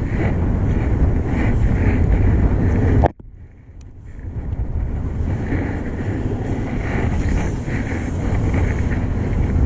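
Strong wind buffeting the camera microphone, a steady rush heaviest in the low end. About three seconds in it cuts off abruptly for about a second, then builds back.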